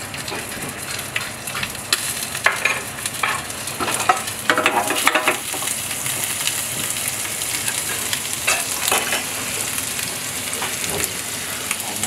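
Pigeon breast sizzling in melting butter in a small frying pan on a gas burner. From about two to five seconds in, the sizzle is broken by a run of metal clinks and knocks from the tongs and the pan.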